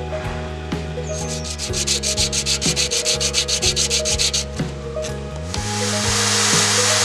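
A small metal sword guard rubbed back and forth on sandpaper, making a fast rhythmic scratching. About five and a half seconds in, it changes to the steady hiss of a spinning wheel as the part is held against it. Background music plays throughout.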